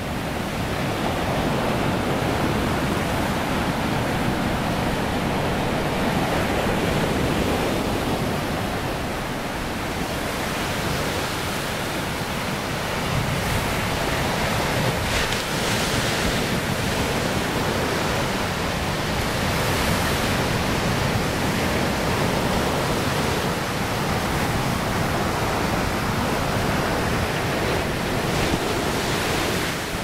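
Pacific Ocean surf washing in among rocks and over sand: a steady rush, with the hiss of the wash swelling a few times as waves come in.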